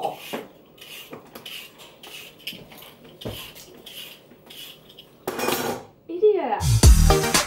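Close-up crunchy munching of raw vegetable, about two crunches a second. Near the end a short burst of noise and a falling swoop lead into loud music with a heavy beat.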